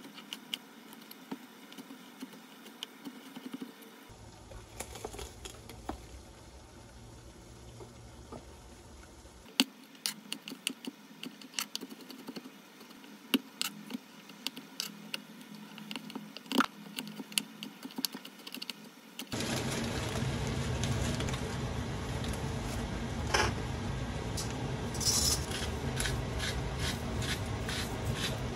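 Kitchen knife chopping garlic on a plastic cutting board: sharp, irregular taps. About two-thirds of the way through it gives way to a steady hiss from a pot of water boiling on the stove, with light clicks near the end.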